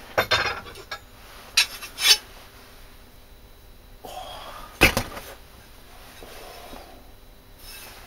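About five sharp metal clinks and knocks from steel knife blades being handled, the loudest about two seconds in and again about five seconds in.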